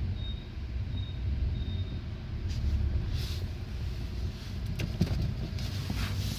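A car moving off, with a steady low rumble and several brief high squeaks and creaks: the squeak that appears as the car starts moving.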